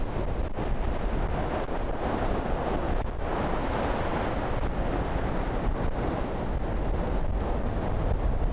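Strong wind buffeting the microphone, with a low rumble, over a steady rushing noise of stormy sea surf.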